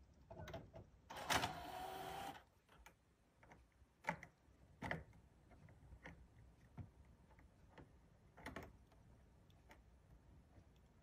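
A Sony PlayStation 4's disc drive whirs for about a second, a motor note that rises slightly, as it ejects a disc after a cat has pawed the console's front. A few faint clicks and taps follow.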